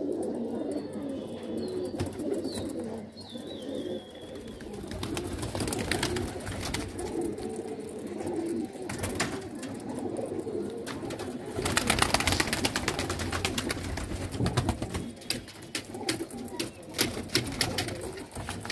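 A flock of domestic pigeons cooing together: a continuous low, warbling coo from many birds at once. Scattered sharp clicks run through it, and there is a louder, noisier stretch about twelve seconds in.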